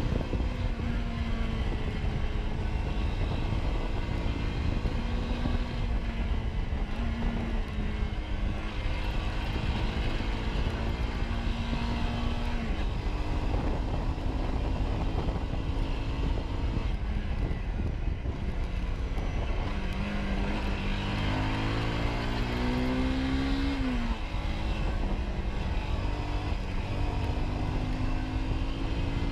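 Motorcycle engine running at road speed, its pitch climbing with the revs and dropping sharply at gear changes, most clearly near the end. Heavy wind rush on the action-camera microphone runs under it.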